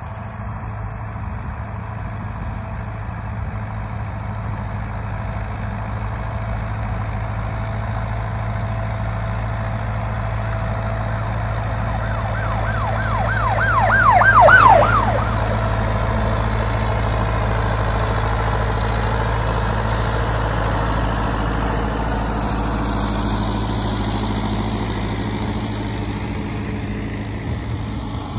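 Fortschritt ZT 323 tractor's diesel engine running steadily under load while pulling a plough, growing louder as it comes closest about halfway through. As it passes, a high warbling squeal repeats about three times a second for a couple of seconds.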